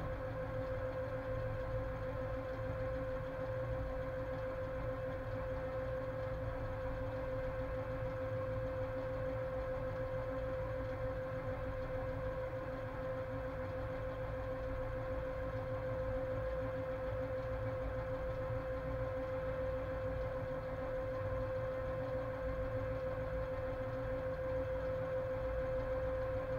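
Steady running noise inside the cab of a class 130 electric locomotive hauling a heavy freight train: a low rumble from wheels and track under a steady mid-pitched hum.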